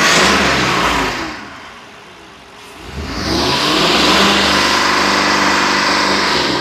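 Freshly installed replacement 7.3-litre gasoline V8 in a 2020 Ford F-53 chassis, revved twice by hand. The first rev eases back to idle about a second and a half in. The second rises about 3 s in and is held high until near the end, running smoothly with no misfire.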